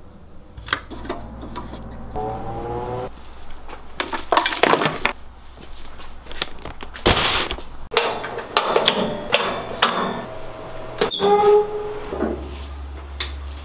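An irregular run of clinks, knocks and clatter, with a louder crash-like burst about seven seconds in, over a low steady hum.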